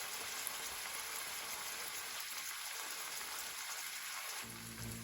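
Fish fillets pan-searing in hot oil, a steady sizzle. A low steady hum comes in near the end.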